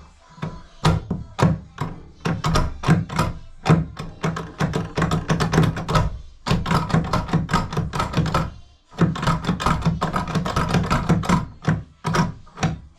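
Rapid clunking and knocking of a bathtub drain selector knob and its stopper linkage being worked up and down to free it, with short pauses twice.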